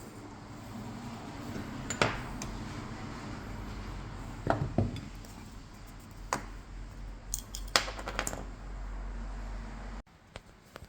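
Metal tools and bike parts clinking and knocking as they are handled during a mountain-bike rebuild: a handful of separate sharp clinks over a low steady hum, which cuts off abruptly about ten seconds in.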